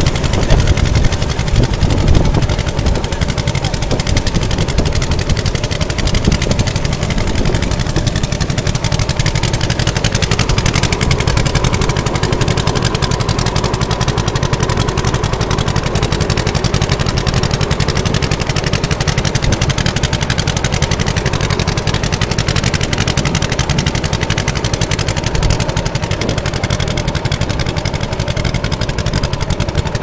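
Engine of a wooden river motorboat running steadily while the boat is under way.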